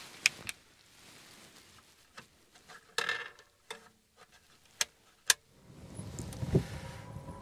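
A few sharp plastic clicks from an RV wall thermostat's slider switch being pushed back and forth. Low handling and clothing rustle builds near the end.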